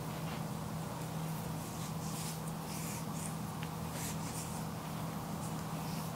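Soft, irregular rubbing and brushing strokes of hands massaging a foot, each lasting a fraction of a second, over a steady low hum.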